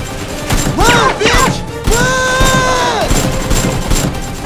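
Action background music over a run of sharp gunfire-like shots and thuds, with short rising-and-falling cries about a second in and one held yell from about two to three seconds in.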